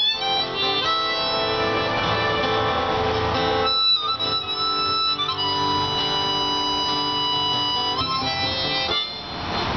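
Instrumental song intro: an acoustic guitar being played while a harmonica plays long held notes over it, the melody pausing briefly about four seconds in.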